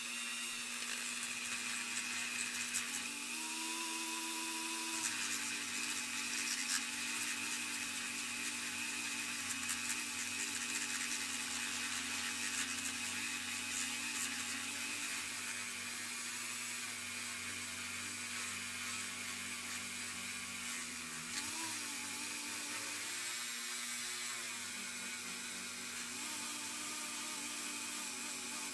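Handheld rotary tool running a small polishing wheel against a bare zinc diecast car body, buffing the metal: a steady motor whine with a hiss of the wheel on the metal. The pitch shifts briefly a few times as the load changes.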